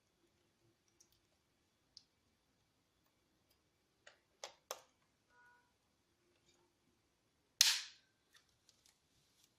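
Small hard clicks and taps from handling an action camera and its plastic accessories, with three quick clicks about four and a half seconds in and one loud sharp snap near eight seconds in.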